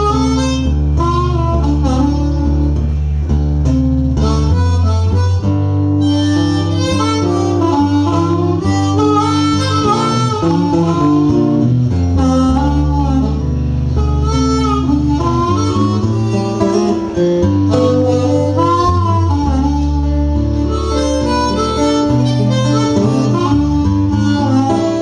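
Blues harmonica solo over acoustic guitar accompaniment: an instrumental break with no singing, the harmonica playing bending, wailing lines above the guitar's steady low notes.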